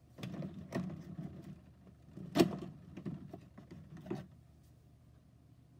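Cardboard door of an advent calendar being pushed open and a small figure pulled out of its compartment: a run of rustles, scrapes and clicks, the sharpest about two and a half seconds in, stopping a little after four seconds.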